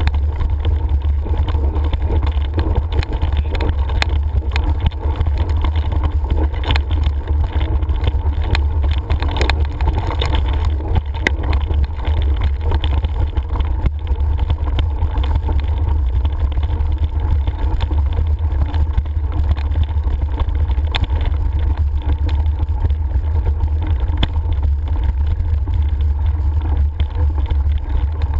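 Steady low rumble of wind buffeting an action camera's microphone while riding a rough gravel track, with scattered clicks and rattles from the bumps and loose stones.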